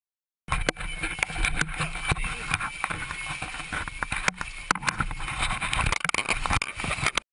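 Inside a Cessna's cabin as it ditches at sea: a loud, dense rush and splash of sea water pouring in, with many sharp knocks and rattles as the cabin jolts. It starts suddenly about half a second in and cuts off just before the end.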